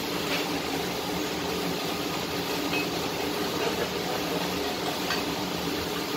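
Gas welding torch flame giving a steady hiss, with a few faint ticks.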